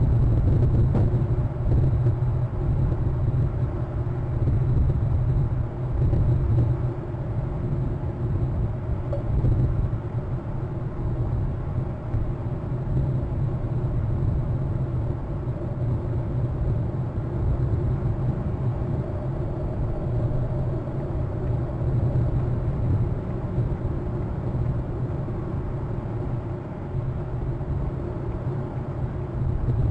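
Steady low rumble with a faint hiss above it: the outdoor background noise picked up by a nest webcam's microphone.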